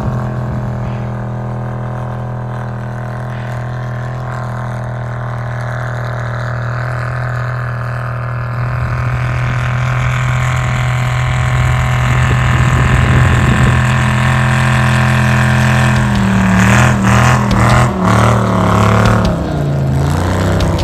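Ultra4 race buggy's engine running hard at steady high revs while it drifts on snow-covered ice, growing louder as the buggy comes closer. Near the end the revs swing quickly up and down.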